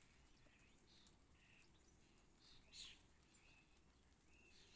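Near silence with faint bird chirps: a handful of short, separate calls, the clearest about three seconds in.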